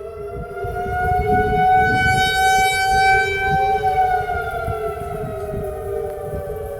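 Outdoor civil defense warning siren wailing for the storm. It grows louder and its pitch rises a little to a peak about two to three seconds in, then it falls and fades, over a low rumble.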